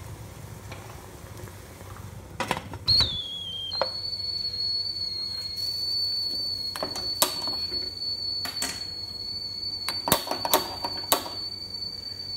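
A metal lid clanks onto a steel steaming pot, then steam escaping from the pot gives a thin, steady high whistle that wavers briefly at first. Light metallic clicks come a few times later on.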